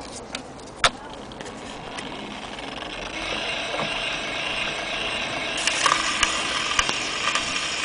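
Surface hiss and crackle of a shellac 78 record playing through a hornless gramophone sound box, growing louder over the first few seconds, with a sharp click about a second in. Near the end it brightens as the first faint music comes through.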